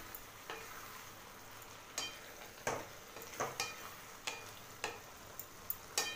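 A spatula stirring thick vegetable curry in a metal kadai, scraping and knocking against the pan about nine times at irregular intervals, over a faint sizzle of the cooking food.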